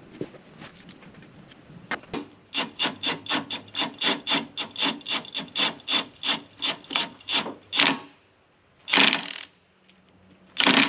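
Quick rhythmic rasping strokes of a hand tool working, about four a second for several seconds, then two longer, louder strokes near the end.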